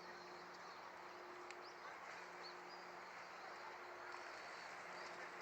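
Faint outdoor background: a steady low hum under an even hiss, with a few short, high chirps.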